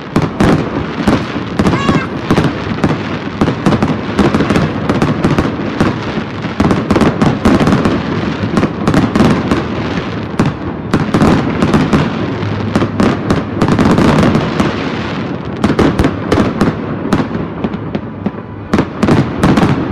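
Aerial fireworks shells bursting in quick succession: a dense, unbroken string of loud bangs and crackles, several a second.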